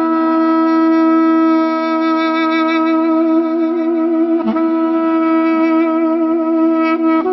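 Background music: a woodwind instrument holding long notes with a slow wavering vibrato over a steady low drone, with a brief break in the line about halfway through.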